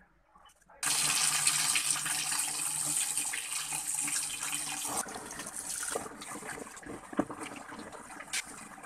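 Water from a tap gushing into a plastic tub of soap powder and metal fan parts, starting suddenly about a second in. After about five seconds the flow is quieter and hands splash and scrub among the parts, with a few sharp knocks.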